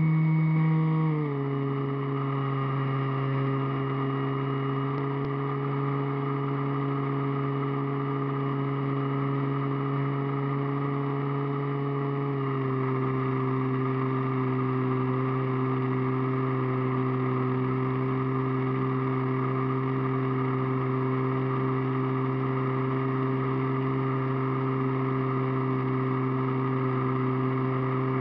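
RC model airplane's motor and propeller running steadily, heard from a camera on the plane. The pitch drops a step about a second in, as the throttle eases, and dips slightly lower again near the middle.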